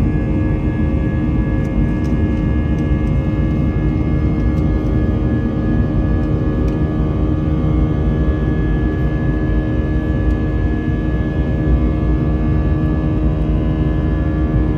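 Steady jet engine noise heard inside an airliner cabin during the climb after takeoff: a deep rumble with a constant hum and a higher steady whine.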